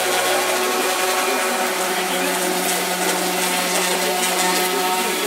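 Electric orbital sander running steadily on a wooden beam: a continuous motor hum under the hiss of sandpaper on wood.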